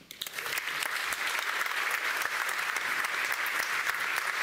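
Audience applauding: clapping that builds up over the first second and then holds steady.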